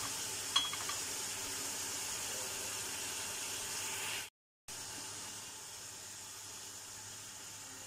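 Chopped meat, tomatoes and onions sizzling steadily in a pressure-cooker pot, with a couple of light clicks about half a second in. The sound cuts out for a moment a little past the middle, then the sizzle goes on a bit quieter.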